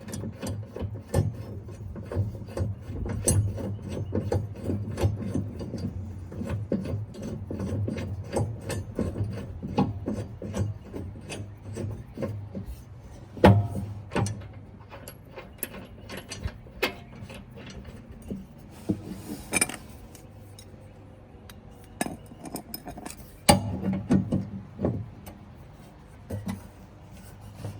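Lawn mower blade and its retaining nut being fitted back onto the spindle: metal clicking and scraping as the nut is turned on. A few sharper metal knocks come in the middle and near the end.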